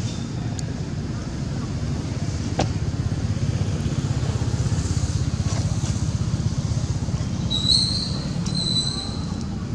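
Steady low rumble of outdoor background noise, with two short high-pitched squeals near the end.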